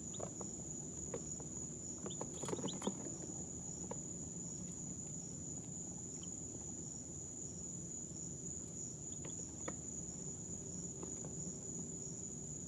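Baby chicks making a few brief, soft peeps and small scratching clicks, clustered about two and a half seconds in. Under them runs a steady high-pitched whine with a low hum.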